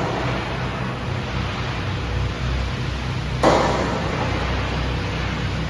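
Flux-cored arc welding: the arc runs with a steady rushing noise over a low hum, and surges sharply louder about three and a half seconds in.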